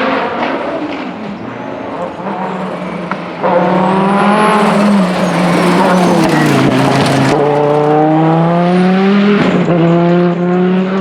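Audi Quattro rally car's five-cylinder engine revving hard, its pitch climbing and dropping through gear changes. It gets much louder about three and a half seconds in as the car comes close.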